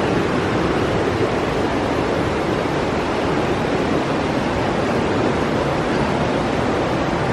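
Steady rush of creek water flowing over rocks.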